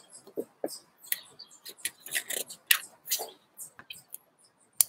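Small birds chirping in short, scattered high calls, with a book page being turned near the end and a sharp click just before the end.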